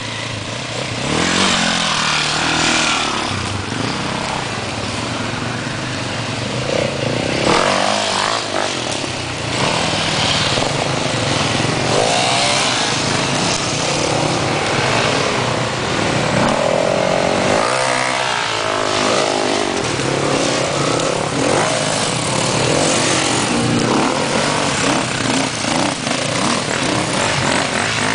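Several enduro dirt bike engines running and revving up and down in pitch as the bikes climb a rough forest trail, with the nearest bike louder toward the end.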